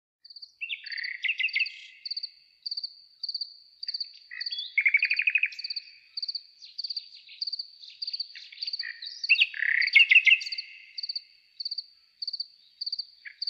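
Crickets chirping in an even rhythm, a little under two chirps a second, with louder, lower trilling calls coming in about a second in, around five seconds and around ten seconds. This is a stock crickets sound effect.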